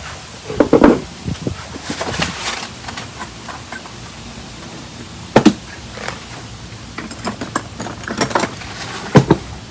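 Scattered knocks and clicks of hands and a tool handling the guitar while its frets are checked for level, loudest about a second in, at about five and a half seconds, and near the end.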